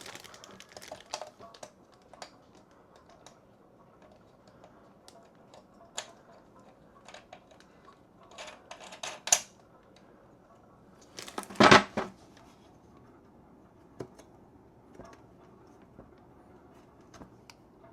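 Scattered light clicks and knocks of small hard parts being handled during the bidet seat's mounting-bracket installation, with a louder clatter about twelve seconds in.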